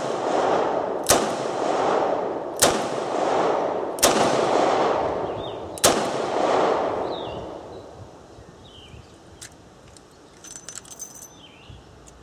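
Smith & Wesson M&P 360 revolver firing .38 Special rounds double action: four shots about a second and a half apart, each trailing a long echo under the covered shooting shed. A few faint clicks follow near the end, once the firing has stopped.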